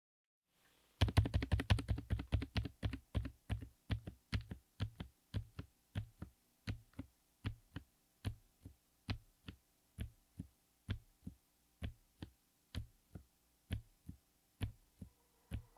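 Typing on a Lofree Flow84 low-profile mechanical keyboard fitted with Kailh Deep Sea Silent Mini silent linear switches. A quick run of keystrokes starts about a second in, then slows to single key presses a little under a second apart.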